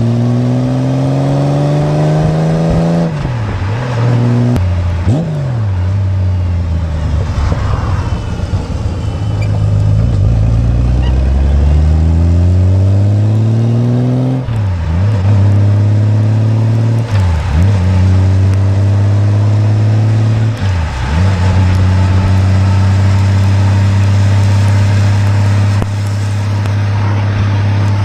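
2002 Honda Goldwing's flat-six engine and exhaust, heard close to the pipes while riding. The pitch climbs in the first few seconds and then drops and rises again several times as the revs change, before holding steady at cruise for the last several seconds.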